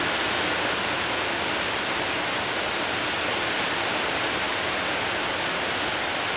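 Steady, even rushing hiss that does not change at all; no distinct events stand out above it.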